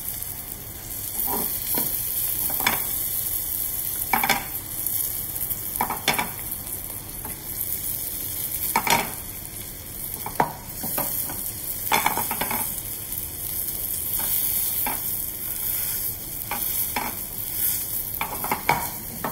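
Mackerel fillets sizzling in olive oil in a steel frying pan: a steady hiss with scattered crackles and pops. Near the end a metal spatula scrapes the pan as it pushes the fillets.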